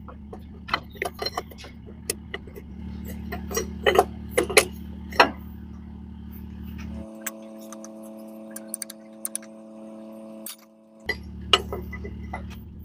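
Steel spanner clinking and clicking against the metal fittings of a truck's clutch booster, a run of sharp metallic clicks, over a steady low hum. About seven seconds in, the hum gives way to a higher steady tone for a few seconds, then returns.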